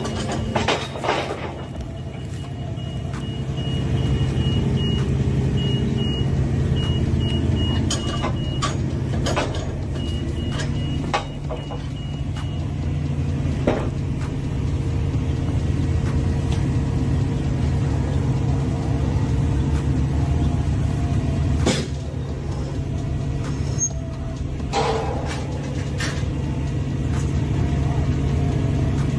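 Heavy diesel construction machinery running steadily, with a reversing alarm beeping for roughly the first ten seconds and scattered knocks and clanks.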